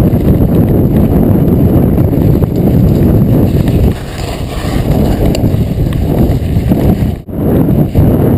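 Mountain bike riding fast over a rough volcanic cinder track, heard from an on-board camera: loud wind buffeting the microphone mixed with tyre rumble and the rattle of the bike. The noise dips briefly about four seconds in and again just after seven seconds.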